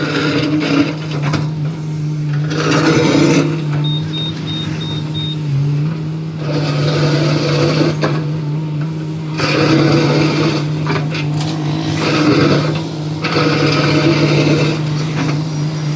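Diesel engine of heavy road-construction machinery running steadily, with bursts of louder mechanical rattle and scraping noise coming and going. A short run of high, evenly spaced beeps comes about four seconds in.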